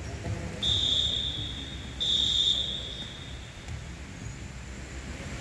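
Referee's whistle blown twice in a volleyball game: a long, steady shrill blast followed almost at once by a shorter, louder one, ringing in a large hall.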